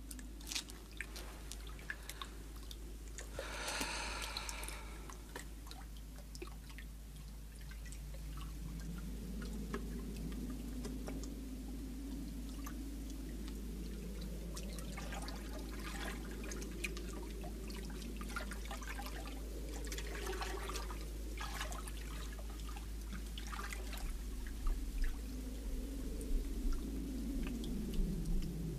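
Water dripping and trickling, with many small scattered clicks and a few brief pitched sounds, the clearest about four seconds in.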